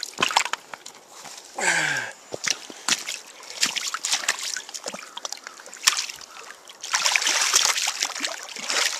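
Shallow water splashing and sloshing as a salmon is released by hand and swims off, with short splashes throughout and a longer burst of heavy splashing about seven seconds in.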